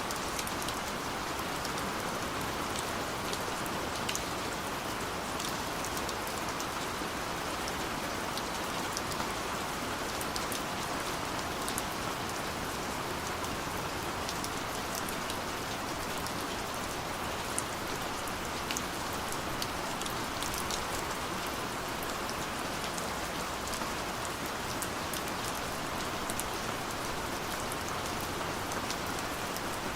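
Steady rain falling, an even hiss with scattered sharp drop taps through it.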